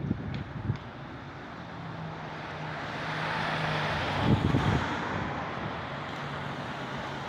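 A road vehicle passing: its engine hum and tyre noise swell to a peak just after the middle, then ease off. Wind buffets the microphone briefly at the peak.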